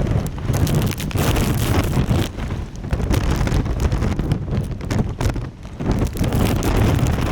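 Typhoon-force wind buffeting the microphone, a loud low rumble with hissing rain and spray that rise and fall in gusts.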